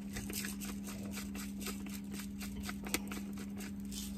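Quick, irregular clicks and scrapes of a utensil against a small container and a saucepan, with one sharper click about three seconds in. Under them runs a steady low hum from the portable electric cooktop.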